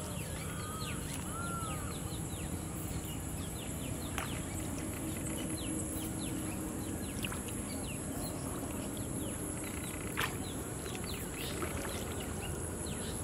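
Outdoor field ambience: a steady high-pitched insect drone with many short chirping bird calls over a low steady rumble, and a couple of sharp clicks about four and ten seconds in.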